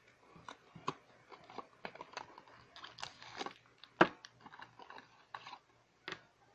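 Toy packaging being handled and opened: irregular crinkles, rustles and taps of plastic and cardboard, with one sharp snap about four seconds in.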